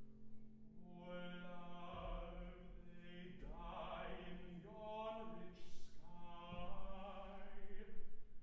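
Baritone singing a classical art song with vibrato over piano accompaniment. Piano tones sustain alone at first, and the voice comes in about a second in.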